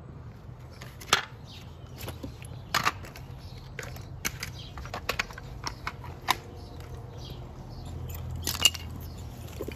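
Scattered light clicks and knocks of tools and hardware being handled, irregular, with two louder knocks about a second in and near the end, over a steady low hum.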